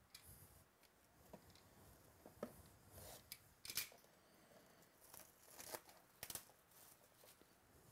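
A sealed box of 2017 Absolute Football trading cards and its wrapping being opened by hand: faint, scattered tearing, crinkling and sharp clicks, the loudest a quick rip about four seconds in.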